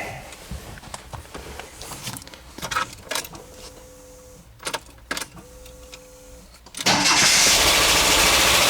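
A few clicks and two short steady tones, then about seven seconds in a VW T3 Westfalia's water-cooled flat-four (wasserboxer) engine starts and runs loudly and steadily. This is a cold start after a cylinder head replacement, with lifters that had pumped down and are tapping.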